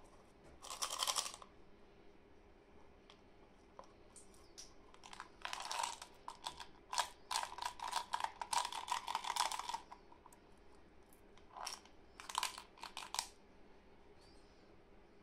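Clear plastic shrink-wrap crinkling and tearing as gloved hands peel it off a small plastic candy toy, in several bursts of crackling, the longest lasting about four seconds in the middle.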